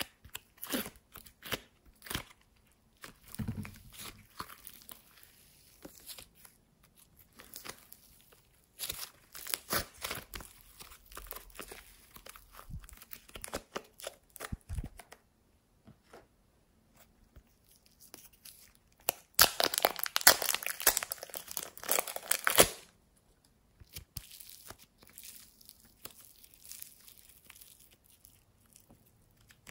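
Soft, airy modelling clay being pulled and torn apart by hand, making fine crackling, tearing sounds in irregular bursts. The loudest, densest crackling comes for about three seconds past the two-thirds mark.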